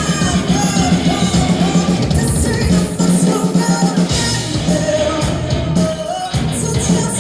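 Rock band playing live and loud, with a woman singing lead over electric guitars and drums.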